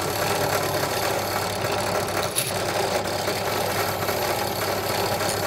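Drill press running steadily, spinning a sanshin tuning peg (karakui) in its chuck while a hand-held metal tool scrapes the turning peg to cut its taper, with one brief click about two and a half seconds in.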